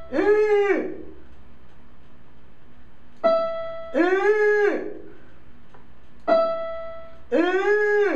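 A short trumpet-like elephant call, rising then falling in pitch, sounds three times, alternating with two single notes struck on an electronic keyboard, the note E5 that is taken for the pitch of the elephant's sound.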